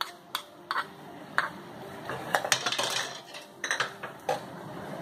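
Metal perforated spatula clinking and scraping against a metal cooking pan: a few separate clinks, a short run of scraping about halfway through, then a few more clinks.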